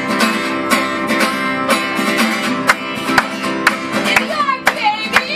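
Two acoustic guitars strummed in a steady rhythm, about two strokes a second, with a fiddle playing along: a small Irish folk band playing a song.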